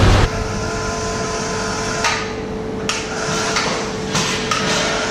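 A handful of sharp metallic clicks and knocks, irregularly spaced, from metal fittings and tools on a roof rack. Under them runs a steady hum.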